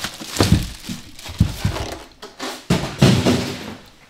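Plastic packaging rustling and crinkling as parts are handled, with several short knocks of items being put down on a tabletop.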